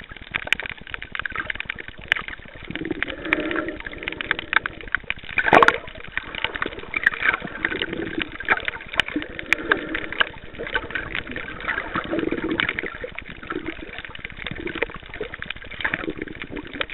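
Underwater sound through a camcorder's waterproof housing: a dense crackle of small clicks with muffled gurgling water movement, and one louder thump about five and a half seconds in.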